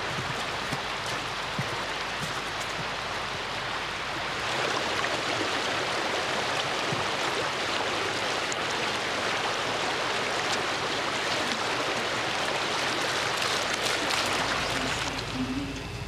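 A flowing stream's water rushing steadily, louder from about four and a half seconds in and dropping away just before the end.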